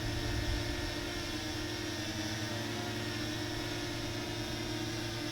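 Parrot Anafi quadcopter hovering, its propellers giving a steady, even hum.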